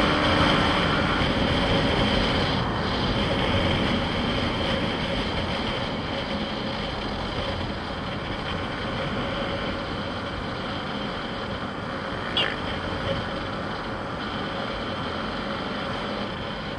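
Yamaha MT-15's 155 cc single-cylinder engine running under steady riding, mostly buried under wind and road noise on the onboard microphone; the sound gradually quietens. A brief sharp chirp about twelve seconds in.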